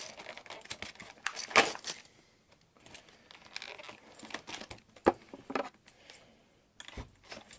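Airsoft pistol packaging being cut with scissors and ripped open by hand: irregular crinkling and tearing, loudest about a second and a half in, with a few sharp clicks later on.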